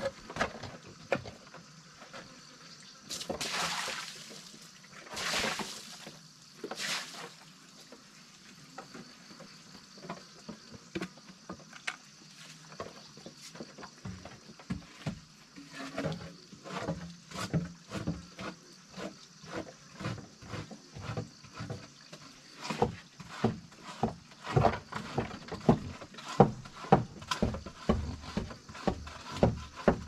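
Cooked pig feed poured from a bucket into the pen in three splashing pours, then pigs eating, a long run of quick wet smacking sounds that grows louder toward the end.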